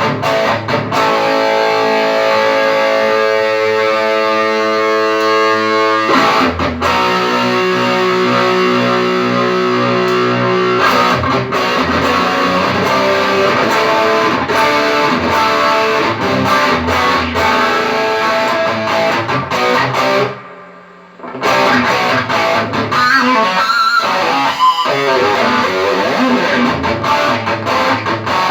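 Distorted electric guitar played through a Mesa Boogie JP-2C tube amp. Held ringing chords come first, then busier riffing with a brief pause about two-thirds of the way through.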